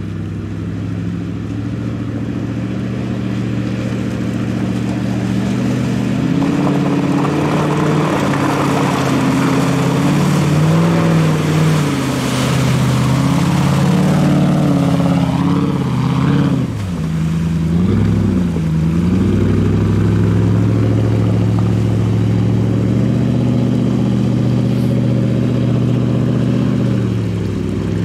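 Land Rover Discovery's Rover V8 engine, with a tuned camshaft and remap, held at high revs under load as the truck churns through deep mud on 37-inch Super Swamper Bogger tyres, wheels spinning and spraying mud. About two-thirds of the way through the revs dip sharply and climb again.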